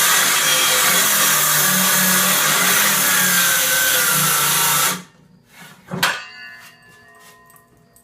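Circular saw ripping a 45-degree bevel along a wooden board, running steadily under load, then stopping abruptly about five seconds in. A single knock follows about a second later.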